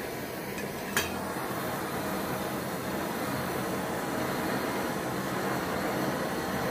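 A single sharp click about a second in, then a MAP gas torch flame burning with a steady hiss as it preheats thin steel plate to burn off condensation.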